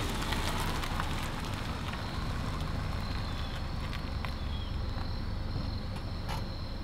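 An SUV rolling slowly into an asphalt lot and braking, its engine and tyres making a steady low rumble. A thin, steady high-pitched drone runs behind it.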